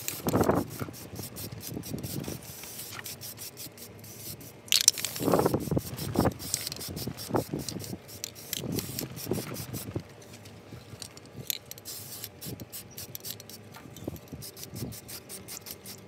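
Aerosol primer can spraying in short hissing bursts, mixed with many small clicks and knocks of parts being handled.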